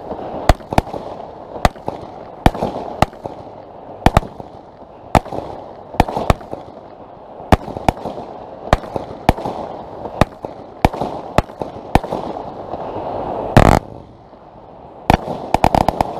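Weco Rain of Glitter 50-shot, 22 mm consumer firework battery firing: sharp shots and bursts, about one or two a second and unevenly spaced, over an even hiss. About 13.5 seconds in comes one longer, heavier blast, and near the end a fast volley of shots follows.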